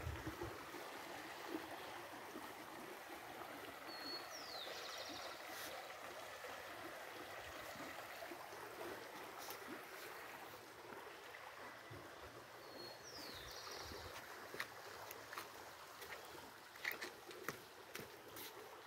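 Faint, steady rush of a shallow rocky creek. A small bird calls twice, a brief note followed by a quick falling trill, about four seconds in and again about thirteen seconds in. A few soft clicks near the end.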